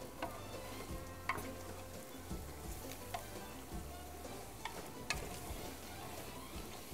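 Wooden spoon stirring and turning chicken pieces in a thick tomato-and-spice mixture in a large metal pot on the heat, with soft sizzling and sharp knocks of the spoon against the pot now and then.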